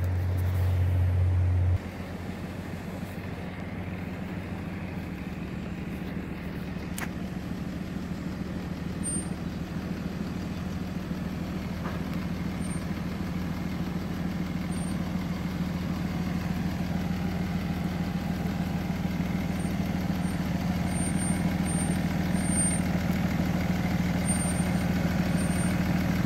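Turbo Cummins diesel engine of a Dodge Ram 3500 running steadily as the loaded truck crawls slowly over a rocky track, growing gradually louder as it approaches. A louder low hum in the first couple of seconds cuts off suddenly.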